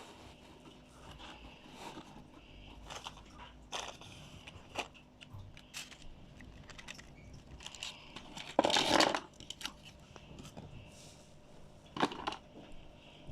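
Packaging and small parts being handled: scattered clicks and rustles, with a louder crinkling crunch a little under nine seconds in and a sharp one about twelve seconds in.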